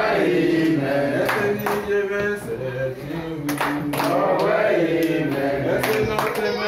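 A group of people singing together, holding drawn-out notes, with a few scattered hand claps.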